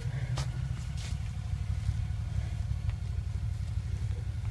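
Side-by-side UTV engine idling: a steady low rumble, with a few faint clicks over it.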